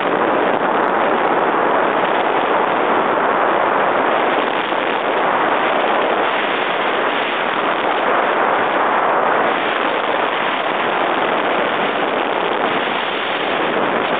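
Steady, loud rush of wind over the microphone while parasailing, an even noise with no engine tone in it.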